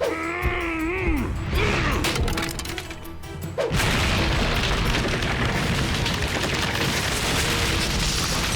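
Cartoon action soundtrack: a couple of high gliding cries in the first two seconds, then a sudden loud rushing roar from a little under four seconds in that keeps going, under music.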